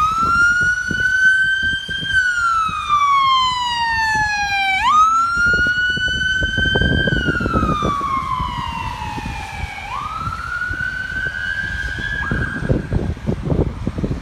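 Ambulance siren on a wail: one tone rising and falling slowly through about three cycles of some five seconds each, jumping back up at the bottom of each fall, then cutting off near the end.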